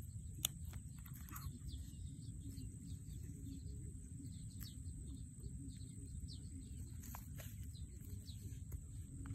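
Small birds chirping in short repeated calls over a steady low outdoor rumble, with one sharp click about half a second in.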